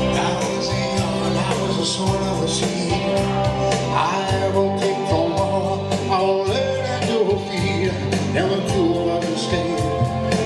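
Live band playing a country-style song: electric guitar and keyboard over a steady beat, with a man singing into a microphone.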